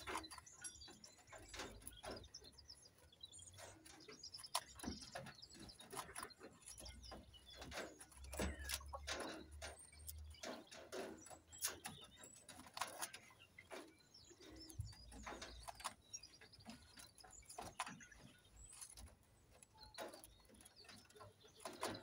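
Faint soft calls and chirps of Coturnix quail, with short scratchy rustles of sand as a quail dust-bathes in a pan of sand.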